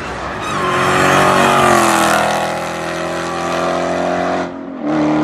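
A car engine running hard under acceleration, its note briefly dropping about four and a half seconds in, like a gear change, then pulling again.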